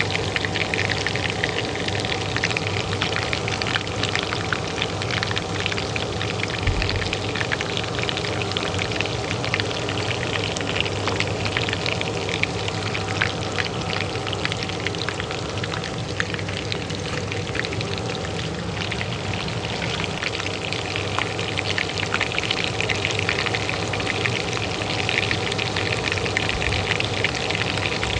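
Oil frying in a pan, a dense, steady crackle of spatter, over the steady hum of a kitchen range hood fan.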